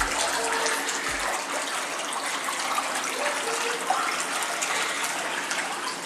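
Steady rush of water pouring from a plunge pool's water feature.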